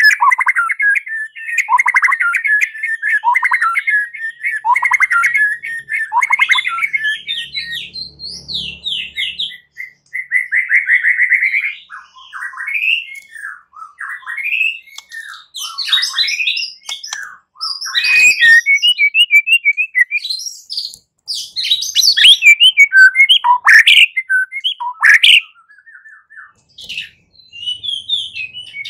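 A white-rumped shama (murai batu) singing loudly in its aggressive fighting ('tarung') mode: a long, varied song of clear whistles. It opens with a run of repeated downward-sliding whistles, breaks into a fast trill about ten seconds in, then goes on in rapid mixed phrases with sharp high notes, pausing briefly near the end.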